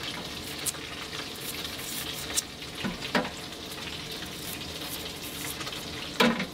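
Salmon frying in a pan, a steady sizzle, with a few short scraping clicks as a carrot is peeled.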